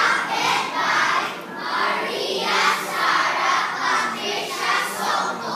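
A large group of young children reciting together in unison, many voices speaking each syllable at once.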